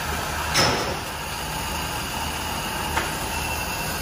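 Large kettle of water at a rolling boil for cooking shirasu, giving a steady rushing noise, with a loud whoosh about half a second in and a sharp click at about three seconds.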